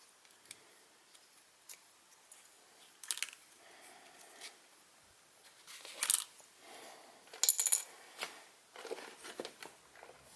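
Small hard objects being handled: a few sharp clicks and clinks. The loudest come about three, six and seven and a half seconds in, with fainter taps between.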